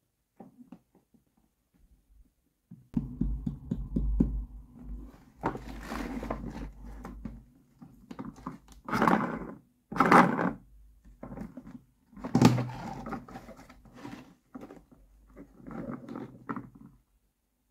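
Hands handling and turning a hard plastic toy case inside its cardboard packaging sleeve: cardboard rubbing and scraping against the plastic, with a few louder dull plastic thunks in the middle.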